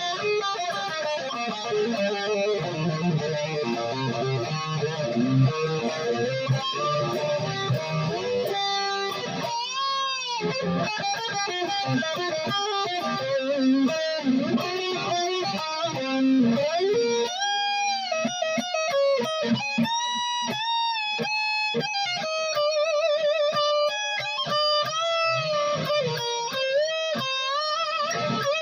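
Made-in-Japan Jackson reverse-headstock electric guitar played solo: chords and riffs, then single-note lead lines with string bends and vibrato.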